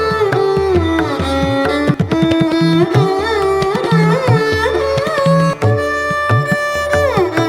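Indian-style instrumental music: a melody instrument sliding up and down between notes over a steady pattern of low hand-drum strokes.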